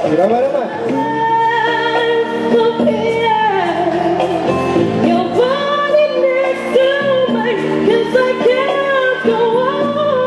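A woman singing a pop song into a microphone over a backing track, her melody held on long notes and bending between them.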